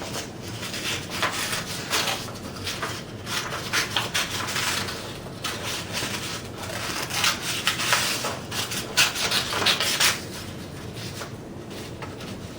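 Scissors cutting through construction paper in a run of short rasping snips, busiest in the middle and softer near the end.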